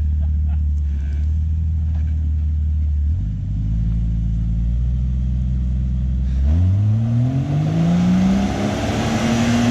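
Jeep engine idling with a steady low hum, then from about six and a half seconds in revving up in a smooth rising pitch and holding at high revs.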